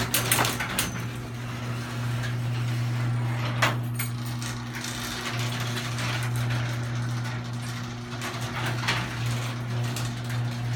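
LiftMaster 1/3-horsepower chain-drive garage door opener running as it closes the door: a steady motor hum with the chain and door rattling along. A couple of sharp knocks come along the way.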